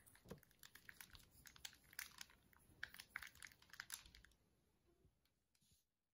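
Faint, quick, irregular small clicks and crackles, light and crisp, that thin out about four seconds in and stop shortly before the end.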